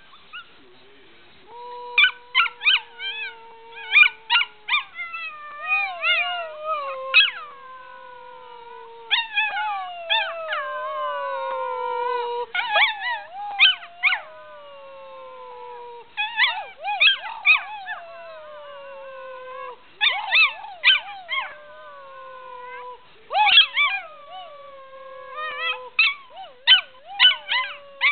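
Six-month-old Australian Shepherd puppy howling, in repeated bouts of long howls that slide slowly down in pitch, broken by short high yips.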